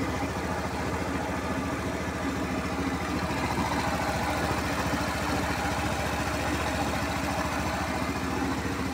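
Honda Scoopy FI scooter's single-cylinder engine idling steadily. It keeps running, the stalling it used to do when the horn was pressed having been traced to a dead regulator-rectifier.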